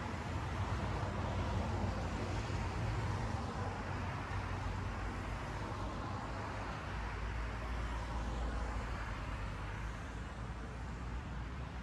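Steady road traffic noise from cars driving past on a city street.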